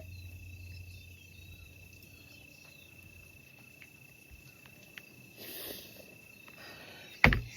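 Insects trilling in one steady high note, with faint short chirps over it. A brief rustle comes about five and a half seconds in, and a sharp knock, the loudest sound, comes near the end.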